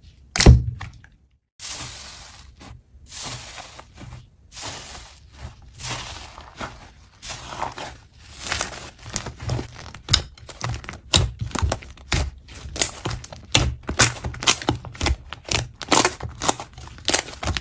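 Slime being squished and pressed by hand, giving irregular sticky crackles and pops that come faster and sharper in the second half.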